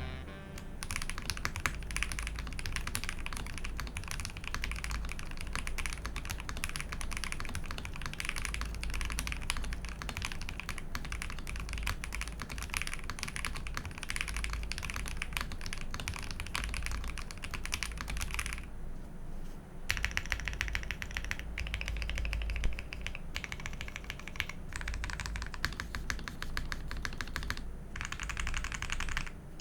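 Typing test on a Jelly Epoch mechanical keyboard, gasket-mounted with a polycarbonate plate, PE foam, lubed L+F Banana Splits switches and GMK keycaps. A fast, dense run of keystrokes that breaks off briefly about two-thirds of the way through.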